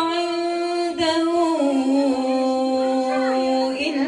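A woman singing an Arabic nasheed, holding long drawn-out notes; the melody steps down to a lower held note about a second and a half in.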